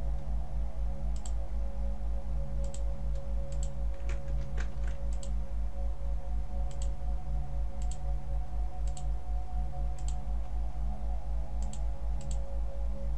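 Computer mouse clicks, about a dozen sharp clicks spread a second or so apart, several in quick pairs, as wire points are set in a circuit drawing. Under them runs a steady low electrical hum with a faint steady higher whine.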